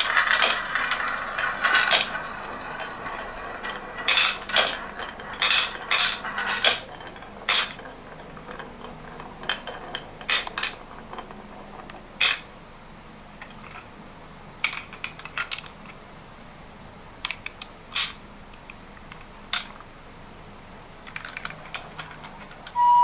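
Marbles rolling and clattering down a wooden HABA marble run: a dense run of clicks and knocks at first, then single clicks scattered every second or so and thinning out near the end.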